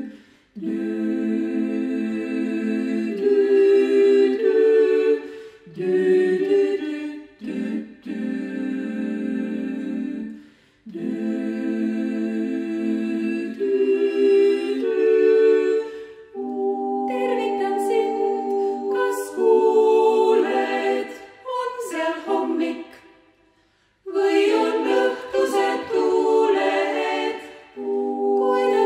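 Vocal ensemble singing a cappella in harmony: held chords sung in phrases with short breaths between them. The sound nearly stops about 23 seconds in, then the voices come back in a busier, more rhythmic passage.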